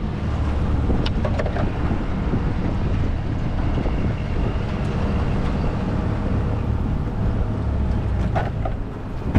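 Wind rumbling over the microphone in an open boat, a steady low buffeting with a faint steady hum in the middle, and a few light knocks about a second in and again near the end.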